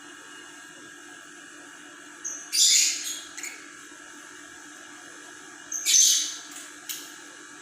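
Lovebird giving loud, harsh, shrill calls: two longer ones about two and a half and six seconds in, and a short one near seven seconds, over a steady background hum.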